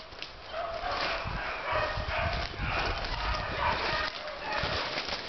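Rabbit-hunting dogs baying on a rabbit's trail, with footsteps thudding through brush and leaf litter.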